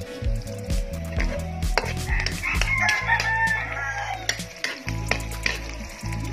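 Onion and garlic frying in oil in a wok, with a metal ladle clicking and scraping against the pan. A rooster crows once, starting about two seconds in and lasting about two seconds.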